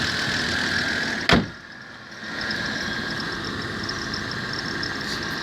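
Car engine idling cold with a steady high-pitched whistle, the whistle that appears only when the engine is cold. A single loud thump comes about a second in; the sound drops away for a moment, then the idle and whistle carry on slightly quieter.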